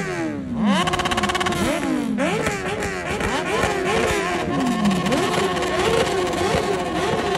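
A superbike engine being revved hard over and over, each blip climbing quickly in pitch, sometimes holding at the top, then falling back. The blips come faster in the second half.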